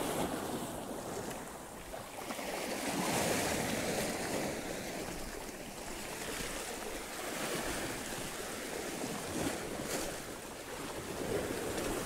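Small sea waves washing up over and draining off low rocks at the water's edge, the surge swelling and easing every few seconds.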